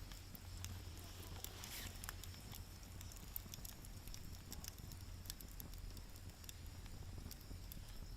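Wood fire crackling in a fire stand: scattered small pops and snaps, irregular, over a low steady rumble.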